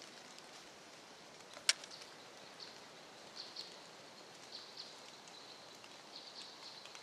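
Quiet woodland ambience: a low steady hiss with scattered faint high ticks, and one sharp click about a second and a half in.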